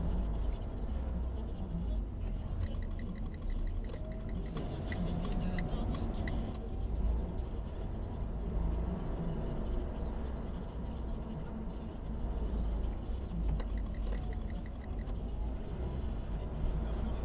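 Steady low rumble of a car's engine and tyres heard from inside the cabin while driving along an open road. A brief rise of hiss comes about five seconds in, and two short runs of faint quick ticks are heard.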